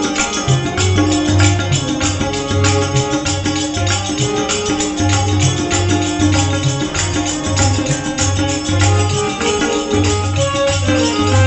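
Tabla and harmonium playing a bhajan accompaniment: deep, regular bass-drum strokes under held harmonium notes, with a dense, fast, jingling percussion rhythm on top.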